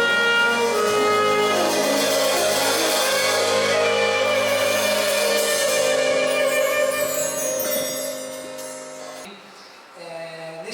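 Worship music ending on a held chord that fades away about eight seconds in, leaving a brief lull.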